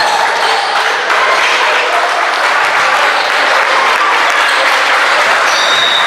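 Basketball spectators applauding and cheering, a steady clapping with raised voices calling out over it.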